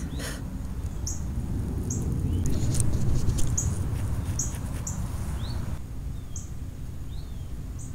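A wild bird calling a short, high chirp about once a second, with a few lower down-slurred notes in between. Underneath is a low rumble of camera handling that grows louder in the middle.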